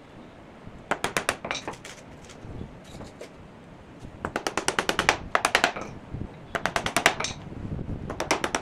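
Runs of quick, light hammer taps on wood, about eight to ten sharp knocks a second, in four bursts.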